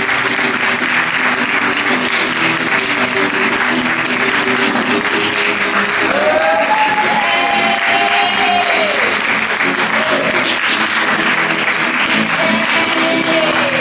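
Audience applauding over music, with a few high whoops from the crowd around the middle.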